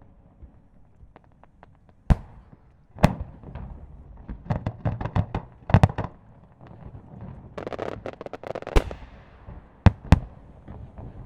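Aerial firework shells bursting. There are sharp booms about two and three seconds in, a quick run of smaller reports between four and a half and six seconds, a crackling hiss around eight seconds, and two booms close together near the end.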